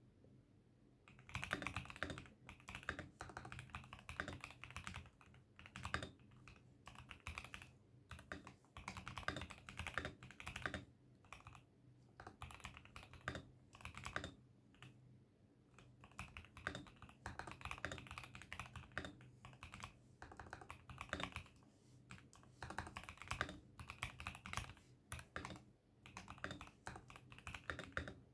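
Typing on an ASUS ROG Azoth wireless mechanical keyboard: fast runs of key clicks broken by short pauses, starting after a brief quiet moment. A faint steady low hum lies underneath.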